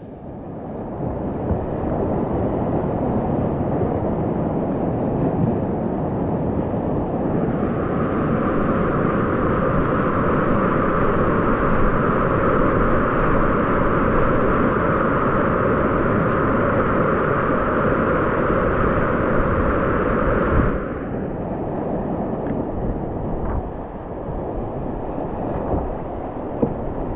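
Rushing whitewater of a river rapid, a steady noisy wash of churning water close to the microphone. It turns brighter and hissier from about seven seconds in, then duller again near twenty seconds.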